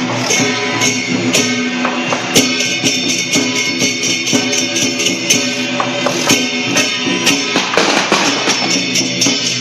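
Loud Taiwanese temple-procession music: rapid, steady cymbal and percussion strokes over sustained pitched melody instruments.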